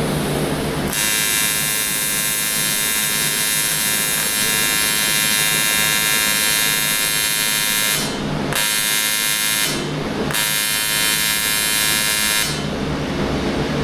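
AC TIG welding arc on aluminium, a loud steady buzz struck three times: a long run of about seven seconds, then two shorter ones after brief stops. The arc is on at full set current with no pedal control, because the remote was set to 2T instead of pedal, so it only switches on and off and blows through the metal.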